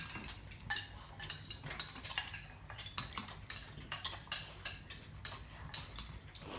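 Chopsticks clicking and clinking against ceramic bowls in quick, irregular taps, a few a second, as several people eat noodles fast, with some slurping.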